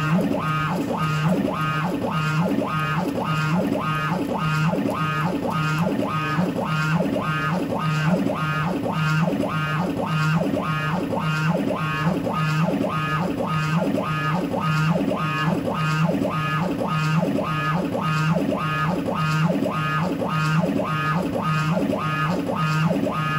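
Stepper motors of a DIY CNC laser gantry driving the Y axis back and forth in quick 100 mm jogs at 15,000 mm/min, each move a pitched whine that ramps up, holds and drops, repeating evenly well over once a second. The axis runs without slipping or losing steps at this speed.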